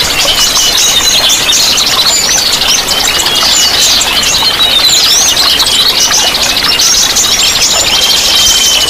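A dense chorus of many small songbirds chirping and trilling at once, continuously, over a steady wash of running water.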